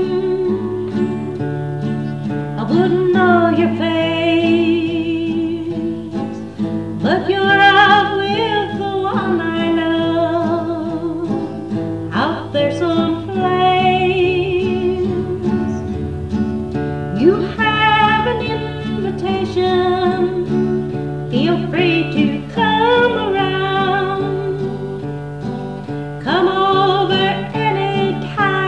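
A woman singing a country ballad with acoustic guitar accompaniment; her held notes carry a wavering vibrato.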